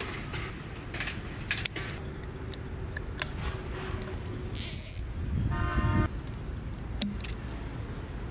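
Small clicks and rubbing of hands fitting rubber balloons onto plastic pipe stubs and snapping rubber bands around them. A brief hiss comes about halfway through, followed by a short horn toot.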